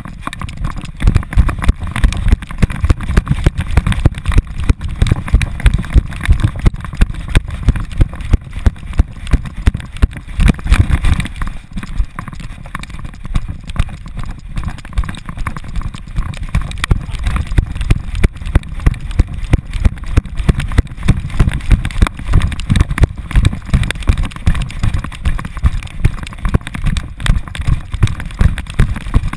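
Steady rhythm of thumps and knocks from a GoPro in a harness on a running American Staffordshire Terrier, jolted with each stride, over a low rumble of handling and wind noise.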